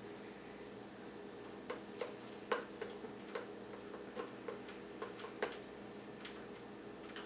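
Light, irregular clicks and taps of a wooden stick and string working in a small plastic cup of white paint, about ten of them over a few seconds, over a faint steady hum.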